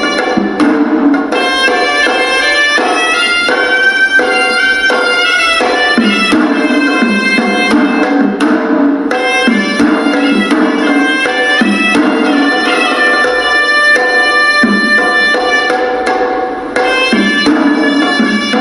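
Hewisi, Sri Lankan temple ritual music: a reed pipe (horanewa) plays a continuous winding melody over steady drumming. It breaks off for a moment near the end, then resumes.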